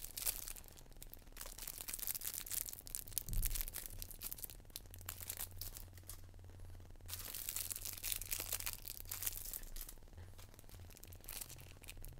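Plastic and anti-static component bags crinkling and rustling as they are handled and set down, in two stretches with a pause between; a dull thump about three seconds in.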